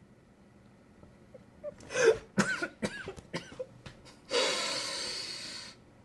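A person coughing a few times in short sharp bursts, followed near the end by about a second and a half of steady rushing noise.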